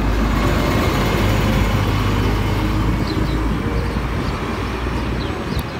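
City bus engine running close by as the bus pulls away, a low rumble that fades over the last couple of seconds.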